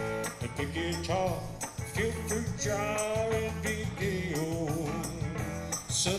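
Live blues-rock playing: an electric guitar plays lead lines with bent notes over a steady low bass line, with a jingling percussion beat keeping time.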